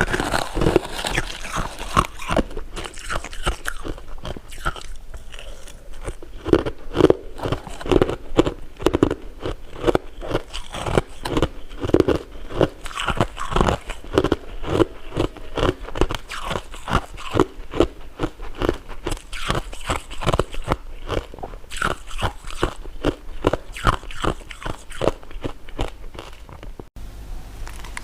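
Close-miked eating: rapid, repeated crunching bites and chewing of dessert, several crunches a second, with a brief break near the end.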